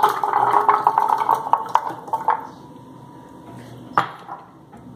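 Falsa berries poured into an empty plastic blender jar, rattling against the plastic in a dense clatter for about two and a half seconds. A single knock follows about four seconds in.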